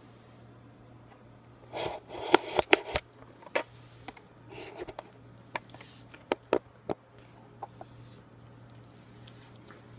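A cat eating wet food from a ceramic bowl: a cluster of wet smacks and sharp clicks about two to three seconds in, then scattered clicks around six to seven seconds, over a steady low hum.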